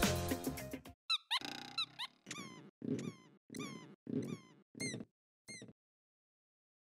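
Background music ending in the first second, followed by about eight short cartoon squeak sound effects, each a quick falling pitch over a soft thump, coming at a steady pace of roughly one and a half a second.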